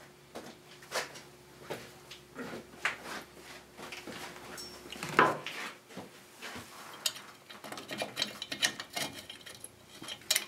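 Metal parts clinking and knocking as a small engine's steel muffler and its bolts are handled and fitted, with one loud clank about five seconds in and a run of quick light metallic clicks near the end.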